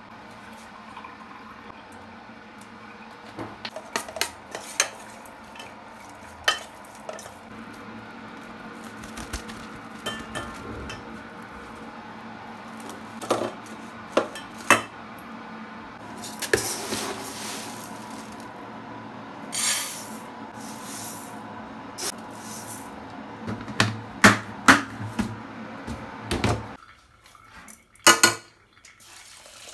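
Kitchen utensil sounds: scattered clinks, knocks and scrapes of a spoon against a stainless steel bowl and then against a frying pan of dry rice, with a couple of brief hissy rushes around the middle and a quick run of strikes near the end.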